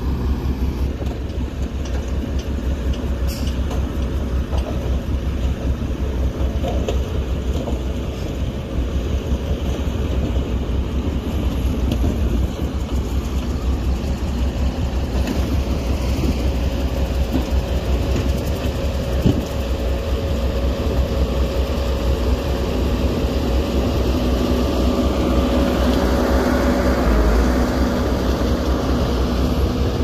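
Heavy diesel machinery engines running steadily with a low rumble, and a steady whine that grows somewhat louder near the end.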